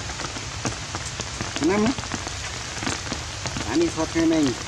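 Steady rain falling on a wet tiled porch, with scattered sharp drips. Two short voiced sounds rise and fall in pitch over the rain, about two seconds in and again near the end.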